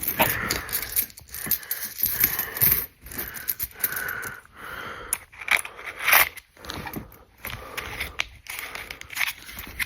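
Pennies being handled by hand while they are counted and rolled: irregular clinks and scrapes of coins, with some rustling.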